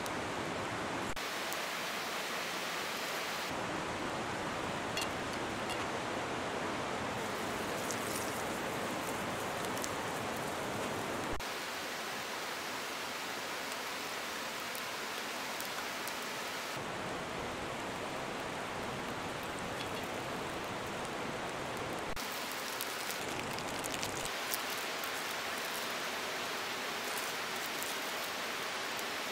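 Steady rushing of running water, like a nearby stream, whose tone shifts abruptly several times. A few sharp crackles from the wood campfire sound over it.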